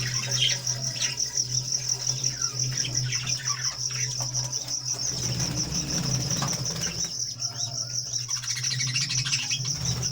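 Small caged parrots chattering in an aviary colony, with many short, scattered chirps over a fast, steady, high-pitched pulsing and a low, steady hum.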